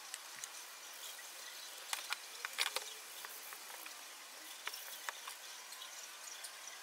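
Faint steady hiss with scattered light clicks and taps as a plywood sign is handled and lifted off a workbench.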